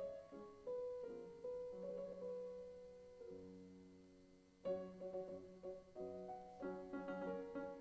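Piano music playing over the closing credits. About three seconds in, a held chord fades away, and a little before five seconds the playing starts again with a stronger chord.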